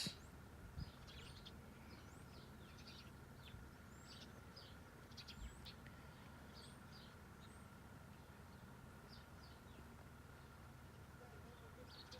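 Faint, scattered high chirps of birds, many short calls spread over the whole stretch, over a faint steady hum.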